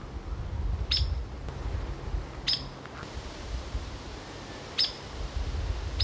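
Hairy woodpecker giving sharp single 'peek' calls, three of them one and a half to two and a half seconds apart, over a low rumble.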